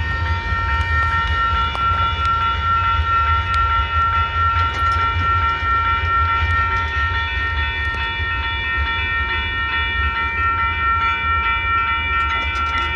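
Railroad crossing signal bell ringing steadily, stopping abruptly near the end, over the low rumble of the freight train.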